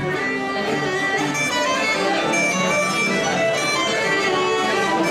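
Live traditional Irish session music: a group of musicians playing a tune together on fiddles and wind instruments.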